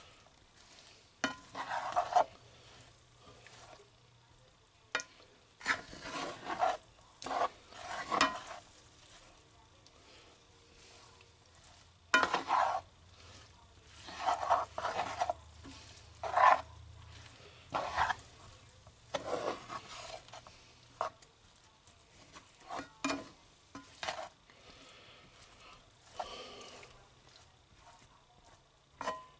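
A spatula scraping and stirring chicken in a frying pan in short, irregular strokes, a few of them sharp knocks against the pan, with pauses between. A faint sizzle of the chicken cooking in the seasoning and water runs underneath.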